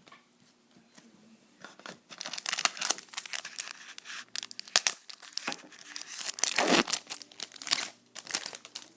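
A trading-card pack wrapper being torn open and crinkled by hand: a dense crackling that starts about two seconds in and goes on in quick irregular rustles until just before the end.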